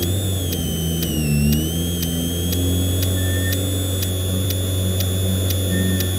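World Rally Car's turbocharged four-cylinder engine idling high and steadily at a standstill, with a high whine over it that dips about a second in and then holds, and faint regular ticking.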